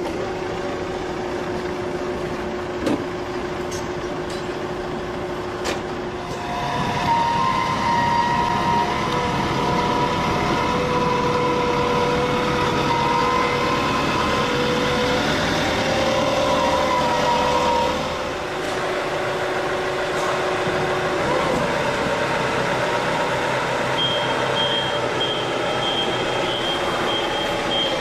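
Forklift running, with a high warning beeper pulsing at an even rate over the last few seconds.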